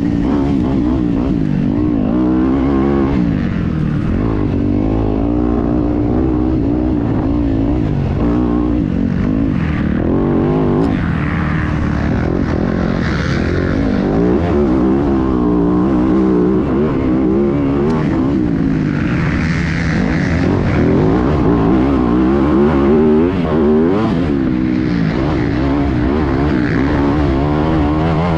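Yamaha YZ250F dirt bike's four-stroke single-cylinder engine running hard, its pitch rising and falling every second or two as the throttle is opened and closed.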